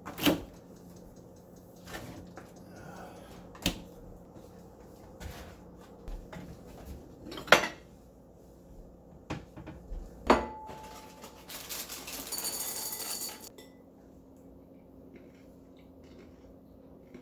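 Kitchen handling sounds: a refrigerator door pulled open with a clunk, then cupboard doors and dishes knocking every few seconds. About ten seconds in, a dish is set down with a short ring, followed by about two seconds of steady hiss.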